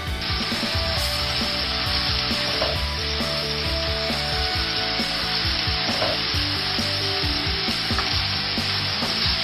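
Food sizzling in hot oil in a pan, a dense steady hiss that starts abruptly just after the start.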